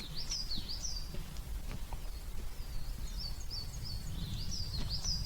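A songbird singing: phrases of quick, high, repeated sweeping notes, one about a second long near the start and two more in the second half. A steady low rumble runs underneath.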